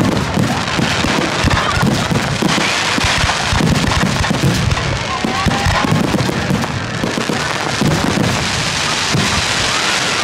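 Aerial fireworks shells bursting in rapid, overlapping bangs and crackles: the dense closing barrage of a fireworks display.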